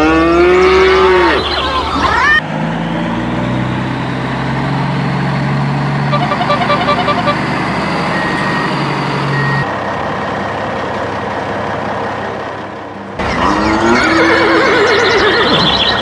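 Farm animal calls, then a steady, low truck engine hum for about seven seconds, then animal calls again near the end.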